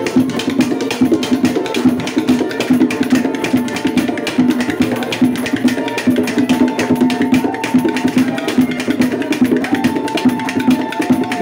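Samba de caboclo percussion: skin-headed hand drums played with bare hands in a fast, dense rhythm, together with a large gourd used as a percussion instrument, giving sharp woody clacks over the drum strokes.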